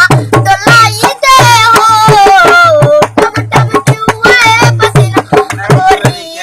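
A child singing a sliding, ornamented melody over a steady hand-drum beat in a tabla-like rhythm. A long falling note is held from about one to three seconds in.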